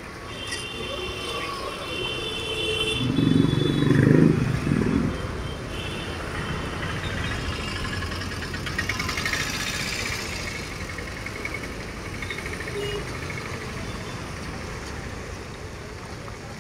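Chicken lollipops deep-frying in hot oil in a kadai, under steady street traffic noise. A vehicle passes loudly about three to five seconds in.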